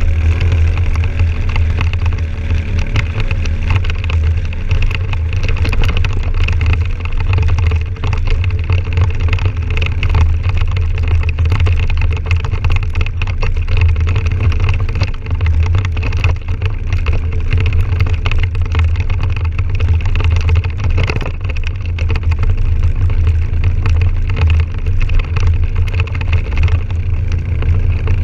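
Can-Am Outlander 1000 XT-P ATV's V-twin engine running steadily under way, a deep even drone with no breaks or big changes in speed.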